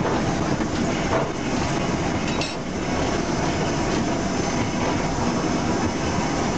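LNER Class A4 steam locomotive Sir Nigel Gresley under way, heard from its footplate: a loud, steady rattle and roar of the engine and its wheels on the track, with the firehole door open on the fire.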